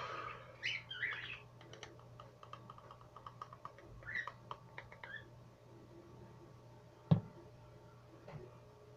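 A quick run of light clicks for about three seconds, as of hands handling objects right by the microphone, then one sharp knock about seven seconds in and a softer one a little later, over a low steady hum.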